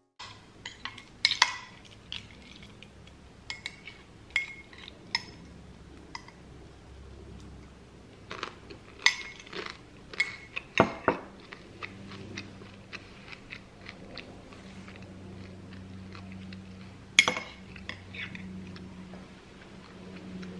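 Metal cutlery clinking against ceramic dishes in scattered sharp clinks: a spoon and chopsticks in a noodle bowl, then a metal spoon stirring and tapping in a ceramic mug, the loudest clink about 17 seconds in. A low steady hum comes in a little past halfway.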